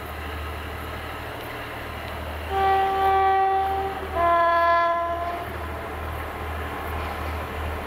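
Heritage diesel locomotive's two-tone horn sounded as two notes, high then low, each about a second and a half long, starting about two and a half seconds in. Under it runs the steady low rumble of the approaching locomotive's engine.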